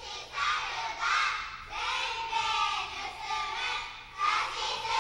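A large group of young schoolchildren reciting a text aloud in unison, in short rhythmic phrases of about a second each with brief pauses between them.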